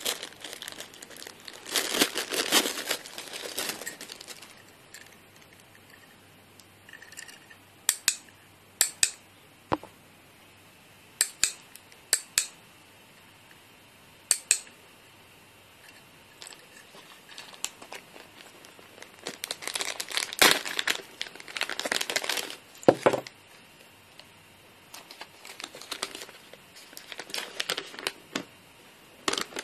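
Plastic packaging bag and a paper instruction leaflet crinkling as they are handled and unfolded, in three spells of rustling, with a few short sharp clicks in the quieter stretch between them.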